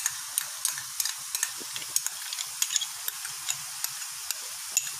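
Egg, onion and chillies frying in a metal kadai: a steady sizzle with irregular sharp crackles, as soy sauce and tomato sauce go into the hot pan.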